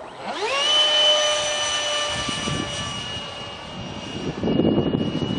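70mm electric ducted fan of an RC foam jet spooling up. Its whine rises quickly in pitch over the first second, then holds a steady high-pitched note at high throttle. A low rushing noise joins near the end.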